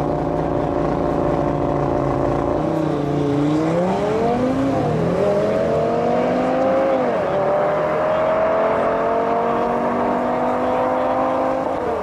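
Audi RS3's 2.5-litre turbocharged five-cylinder held at steady launch revs beside a second car, then launching hard. The note dips as the drive takes up and climbs. It drops sharply at two upshifts about two seconds apart, then keeps rising more slowly as the cars pull away.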